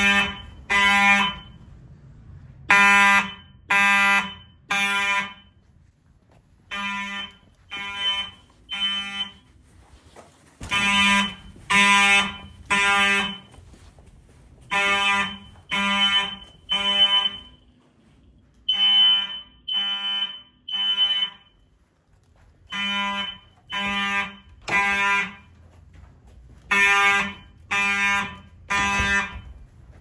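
FCI mechanical fire alarm horns blaring in the temporal-three evacuation pattern: three half-second blasts, a pause, then three more, repeating about every four seconds. The loudness rises and falls from one round to the next.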